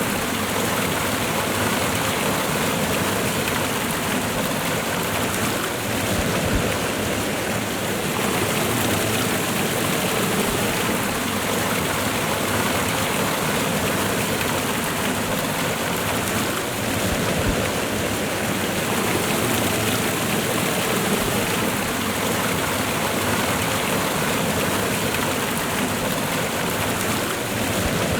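Waterfall and river water rushing steadily, a dense, even roar of falling and running water.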